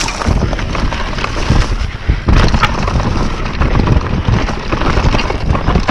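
YT Capra mountain bike descending rough singletrack at speed: wind buffeting the action-camera microphone, tyres rolling over dirt and leaves, and the bike rattling and knocking over bumps, with a heavier jolt about two seconds in.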